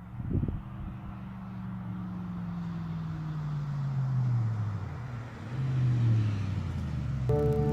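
Toyota Tundra V8 with a Gibson cat-back exhaust running under throttle. Its note slides gradually lower as it grows louder, with a second swell about six seconds in and a brief knock right at the start. Music comes in at the very end.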